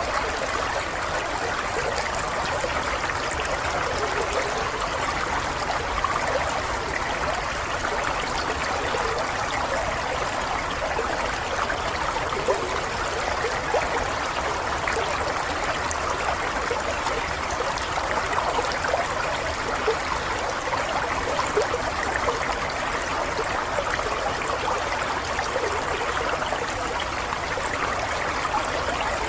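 Running water flowing steadily, with a continuous trickling, bubbling babble like a small stream.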